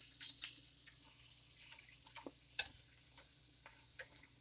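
Wheel-shaped snack pellets frying in hot oil in a pan: scattered crackles and pops over a thin sizzle. Metal tongs clack in the pan, once sharply about two and a half seconds in.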